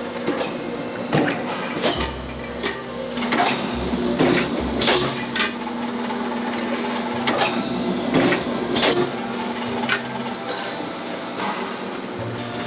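Metal parts clanking and knocking irregularly as pan blanks and rings are handled at a forming press, over a steady machine hum.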